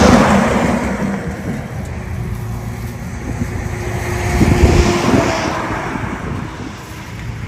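Wind rumbling on the microphone, with the noise of a motor vehicle swelling and then fading about four to five seconds in.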